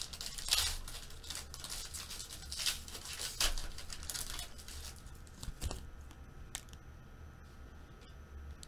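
A foil pack of football cards torn open and crinkled in the hands, in a run of rustling, tearing bursts. About halfway through it dies down to a few light clicks as the cards are handled.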